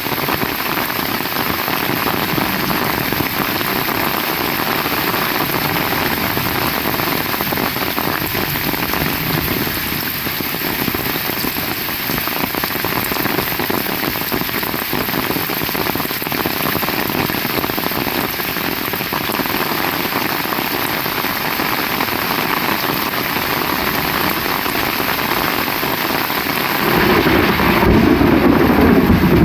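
Heavy rain falling steadily, a dense even hiss of drops. Near the end a deeper, louder low rush swells up.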